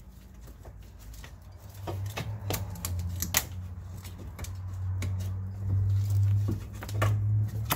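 Scattered light clicks and taps from hands-on work fitting a new front axle shaft, heard over a low steady hum.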